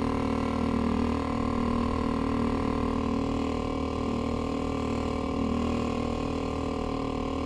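Small outboard motor on a kayak running steadily at a constant speed, driving the boat along.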